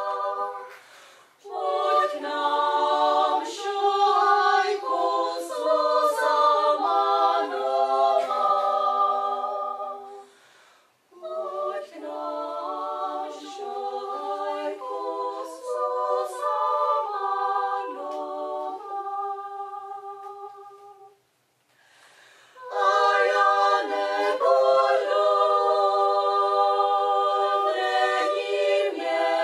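Small women's choir singing in harmony in several parts, in phrases separated by short pauses, the longest about two-thirds of the way through.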